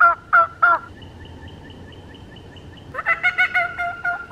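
Crow locator call blown by mouth in a series of harsh caws, about three a second, over the first second, used to make a turkey gobble back. Faint, quick high bird notes follow. Near the end comes a louder, faster run of calls.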